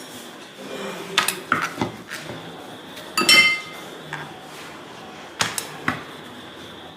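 Rolling pin knocking and clinking on the rolling board as a roti is rolled out thin, a few sharp knocks scattered through, with a louder ringing clink about three seconds in.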